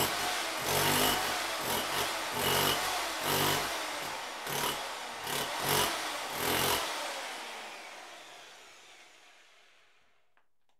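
DeWalt hammer drill hammering into a concrete floor, close up in a small room, in repeated surges about every second. It stops about seven seconds in and the sound fades away over the next three seconds.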